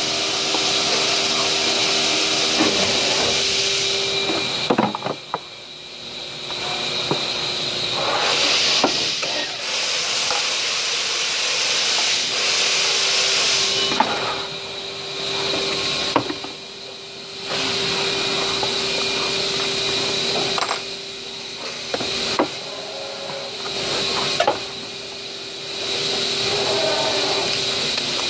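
A loud, steady hiss with a faint hum under it, cutting off abruptly and starting again several times, over occasional knocks and clatter of plastic pots being handled on a table.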